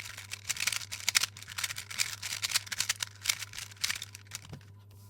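Plastic 3x3 speedcube being turned rapidly during a solve: quick, irregular clicking and clacking of the layers, easing off in the last half-second.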